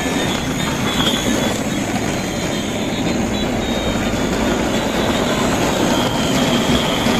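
Battery-powered plastic toy trains running around plastic tracks, their small motors and wheels making a steady whirring.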